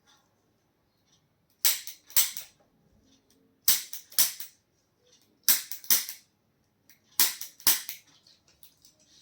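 Sharp, snapping strikes in four pairs. The two strikes of each pair are about half a second apart, and each pair follows the last by about a second and a half to two seconds.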